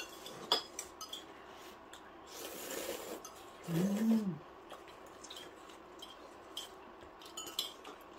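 Chopsticks and a spoon clicking lightly against ceramic bowls and a stainless steel pan during eating, with a short hummed "mmm" that rises and falls about four seconds in.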